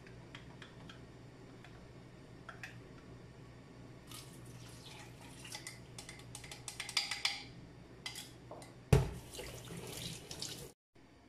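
Coconut milk being poured from a glass into a pot over raw fish, splashing and trickling with small clinks for a few seconds from about four seconds in. A loud knock comes about nine seconds in, and the sound cuts off abruptly just before the end.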